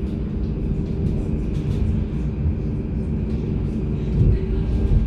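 GT8N tram running along the track: a steady low rumble with a faint steady whine and light scattered clicks.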